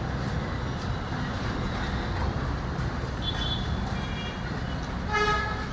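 Steady low rumble of a running engine, with a short pitched sound near the end.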